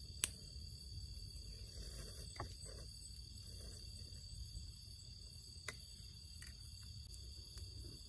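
Steady high trilling of night insects over a low rumble, with a few sharp clicks of a fork against a plate, the loudest just after the start.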